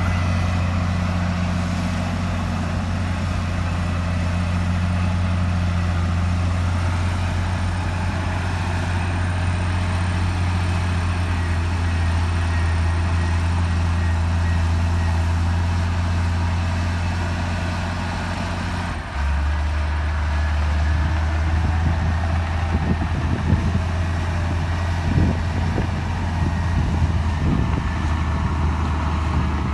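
Heavy diesel earthmoving machinery running steadily. About two-thirds of the way through, the sound changes abruptly to a lower engine note, and scattered knocks and clanks follow.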